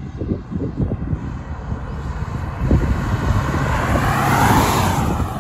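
A Kia Seltos and a second SUV racing toward and past the microphone at speed. The engine and road noise build from about three seconds in and are loudest at four to five seconds as the cars pass close.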